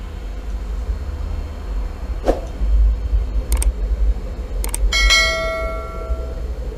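Subscribe-button animation sound effect: three sharp clicks, then a bell ding about five seconds in that rings out for about a second and a half, over a steady low hum.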